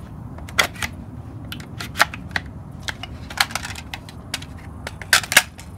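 Scattered clicks and clatter of a Beretta ARX-100 rifle being handled and a magazine fitted, with a louder quick double click about five seconds in.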